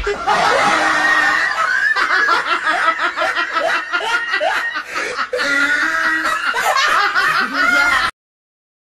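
A person laughing hard, in long unbroken runs of quick laughs, cutting off abruptly about eight seconds in.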